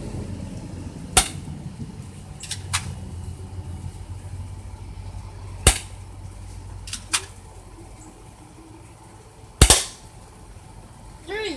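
Airsoft gun firing single shots: three loud sharp cracks about four seconds apart, with fainter clicks between them.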